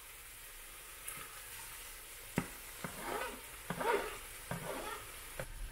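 Minced meat, onion and freshly added diced tomatoes sizzling in a frying pan. From about two seconds in, a wooden spoon scrapes tomato off a plastic cutting board into the pan with several sharp knocks and taps.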